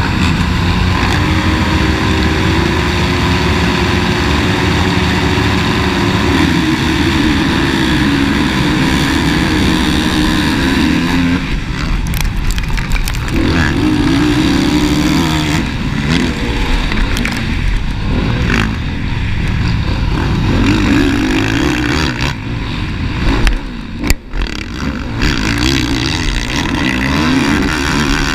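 Honda motocross bike racing, heard from the rider's helmet: the engine revs hard, rising and falling through throttle and gear changes. The revving drops out briefly a couple of times.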